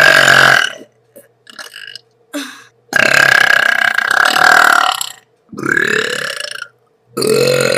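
A boy burping loudly several times in a row, four big burps in all, the longest drawn out for about two seconds.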